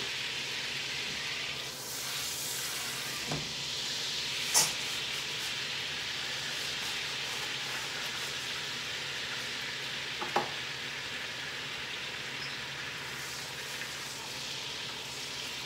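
Dry spaghetti frying in melted butter in a skillet, a steady sizzle as the pasta is stirred to brown. A few sharp clicks break through, the loudest about four and a half seconds in.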